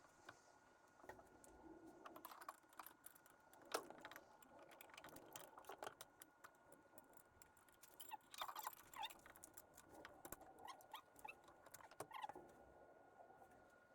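Faint, scattered clicks and clinks of hand tools and metal parts being handled, with one sharper click about four seconds in and a busier patch of rattling a little past halfway.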